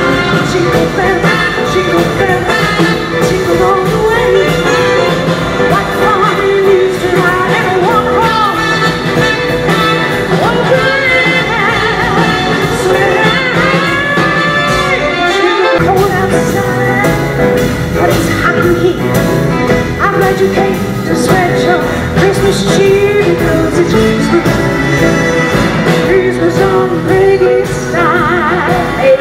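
A woman singing into a microphone over amplified instrumental backing, loud and continuous, with a momentary break in the bass about halfway through.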